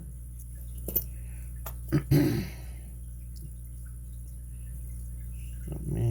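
Small metal clicks of tweezers picking and handling the key pins of a lock core, a few sharp ticks about one and two seconds in, over a steady low electrical hum.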